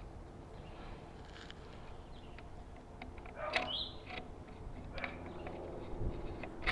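Faint outdoor background with a few light clicks as hex screws on a light fixture's pole mount are loosened, and a short bird chirp about halfway through.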